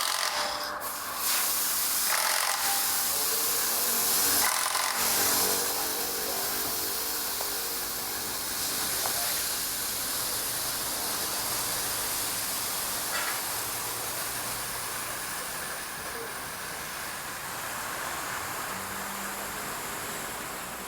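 Compressed air hissing steadily out of a car tyre as it is deflated, easing slightly as the pressure drops.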